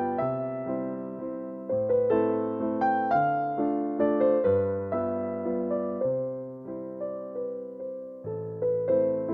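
Background music: a slow, gentle piano piece, with single melody notes fading after each stroke over low notes that change every second or two.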